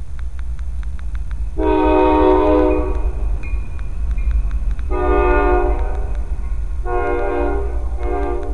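Norfolk Southern diesel freight locomotive's air horn sounding a series of blasts, two long ones followed by two shorter ones, over the low rumble of the passing train.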